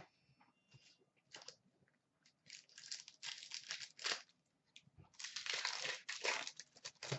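Foil wrapper of an Upper Deck hockey card pack crinkling and tearing as it is handled and ripped open, in two longer spells of crackling about two and a half and five seconds in.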